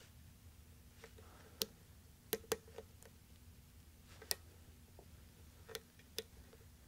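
Faint, sharp metallic clicks from a hook pick working the pins of a weathered five-pin Schlage pin-tumbler lock cylinder during single pin picking, about eight clicks at irregular intervals.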